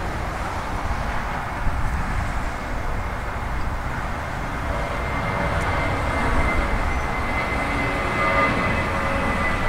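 Twin-engine jet airliner climbing out after takeoff: a steady jet-engine rumble, with a thin high whine that grows clearer in the second half.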